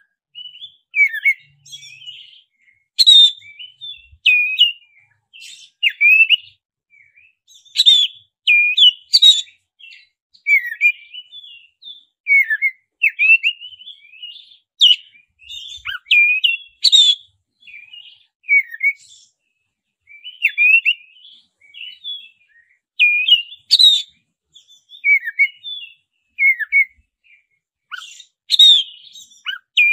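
Black-breasted Oriental magpie-robin singing a loud, varied song of quick whistles, rising and falling sweeps and chattering notes, in short phrases with brief pauses between them.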